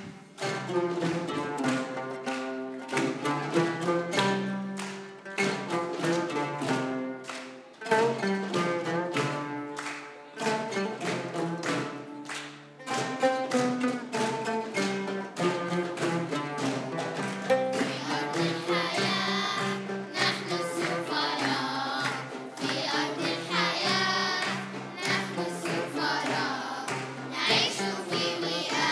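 A live ensemble of ouds and other plucked string instruments plays a lively tune with a steady percussive beat. A choir of children's voices joins in singing about two-thirds of the way through.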